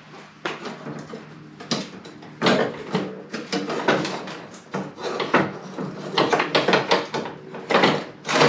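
Irregular clunks, rattles and scrapes of hands handling a snow blower's sheet-steel frame and engine deck.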